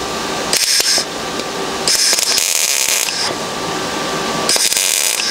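Stahlwerk MIG 175 ST IGBT welder laying three short bursts of arc onto a thin sheet-steel patch panel, each a crackling hiss that starts and stops sharply, the longest about a second and a half in the middle. The welder is running cleanly now that its current has been turned up.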